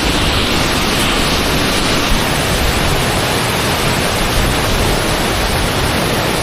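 Purling Brook Falls in heavy flow: a steady roar of falling water, with gusts of wind off the falls buffeting the microphone.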